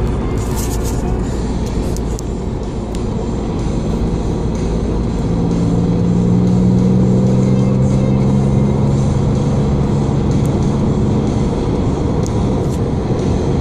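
Porsche 911 (996) 3.4-litre flat-six heard from inside the cabin over steady tyre and road noise. About four seconds in the engine note swells and climbs slightly in pitch under acceleration, then eases back near the end.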